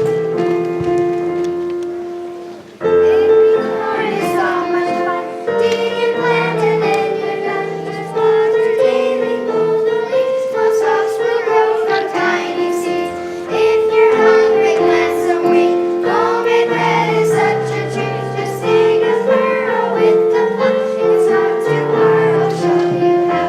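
Children's choir singing a song with piano accompaniment; the piano plays alone for the first few seconds before the voices come in.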